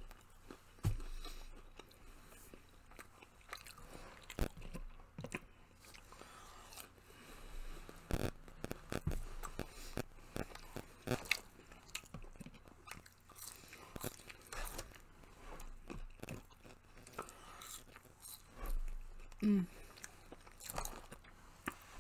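Close-up chewing and biting of fast-food chicken nuggets and fries, with scattered short crunches and mouth clicks.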